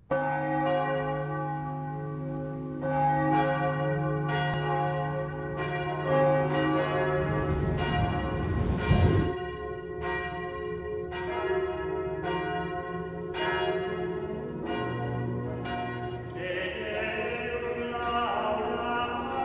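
Church bells ringing, a run of struck strokes each ringing on and fading, over a low steady hum. A rushing noise swells about seven seconds in and cuts off suddenly a couple of seconds later.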